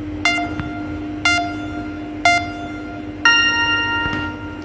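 Four bell-like chime notes about a second apart, the first three on the same pitch and the fourth higher and held longer, over a steady low hum.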